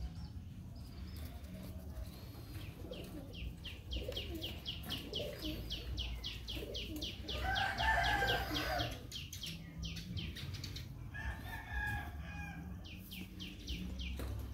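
A rooster crowing, loudest about halfway through, with a weaker second call a few seconds later. Under it runs a rapid series of short, high chirps, about four or five a second.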